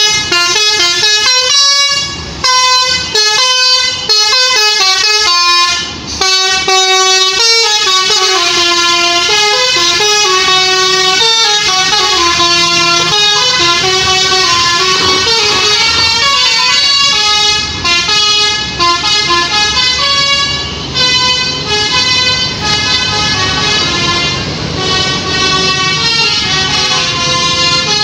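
Bus basuri telolet horn, a multi-tone musical horn, playing a tune of stepping notes. It starts with quick short toots, then moves to longer held notes, with an engine running underneath.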